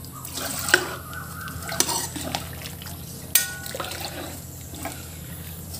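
Metal spoon stirring a pot of thick onla curry made of bamboo shoot and rice flour, with soft liquid swishing and a few clinks and scrapes against the pot. The stirring is kept up so the rice flour does not settle and lump on the bottom.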